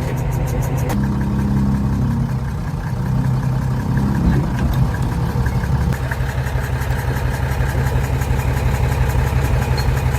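Mercedes OM352 six-cylinder diesel engine idling steadily with an even pulsing beat. A higher droning tone sits over it in the first few seconds.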